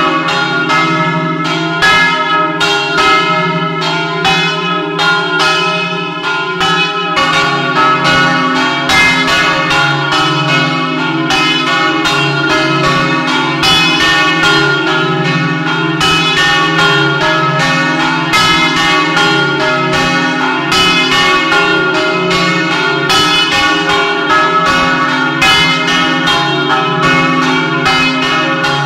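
Several large bronze church bells swinging full circle on electric drives and ringing together at close range, their clappers striking in a continuous overlapping peal: an electric 'doppio', the festive peal of all the bells swinging.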